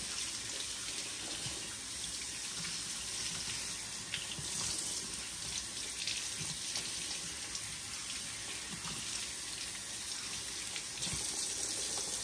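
Kitchen faucet running steadily into a sink while a giant horse conch shell is scrubbed by hand under the stream, with a few faint knocks from handling the shell.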